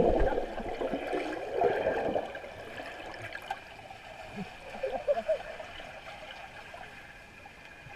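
Muffled underwater sound in a swimming pool: water swishing and bubbling around the submerged camera. It is loudest in the first two seconds, then settles to a quiet steady hiss.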